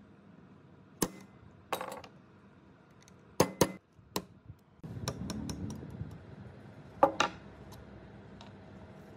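Hammer striking a steel pin punch to drive rivets out of a rusty saw frame clamped in a bench vise: a handful of sharp metallic clinks, two in quick succession about three and a half seconds in and the loudest about seven seconds in, with a brief low rubbing noise about five seconds in.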